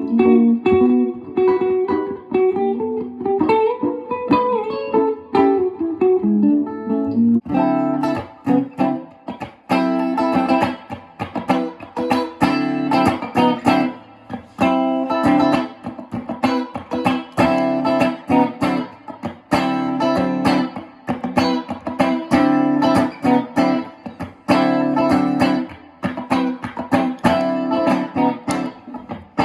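Guitar being played: a single-note melodic line for the first seven seconds or so, then fuller chords in a rhythmic pattern for the rest.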